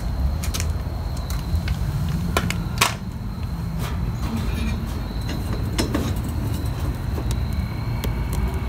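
Scattered light metallic clicks and scrapes, one sharper about three seconds in, as the kerosene heater's burner chimney is handled by its knob and lifted to show the flame, over a steady low rumble.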